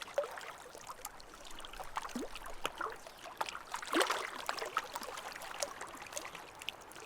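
Water trickling and lapping with small irregular splashes, the loudest about four seconds in.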